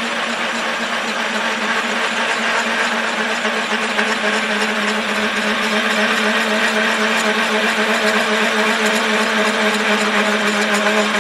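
Metal lathe running while the cutting tool machines the inside of a cast iron water pump housing, boring the seat for the seal's mating ring. A steady hum with the hiss of the cut over it, growing slightly louder.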